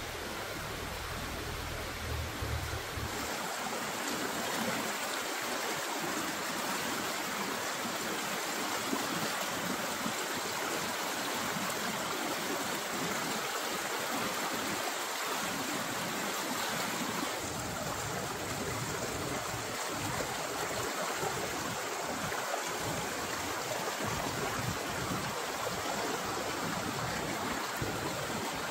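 Steady rushing noise of running water. A low hum under it stops about three seconds in.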